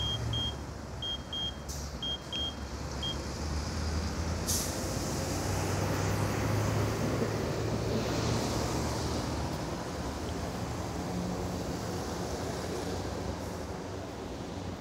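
Road traffic on a wet street: a steady hiss of tyres on wet asphalt with a low engine hum, swelling as a vehicle passes about halfway through. Short high electronic beeps, about three a second, stop about three seconds in.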